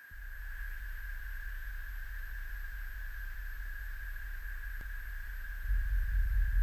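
Electronic ambient drone soundtrack: a steady high, whistle-like tone held over a low rumbling drone, which swells louder near the end.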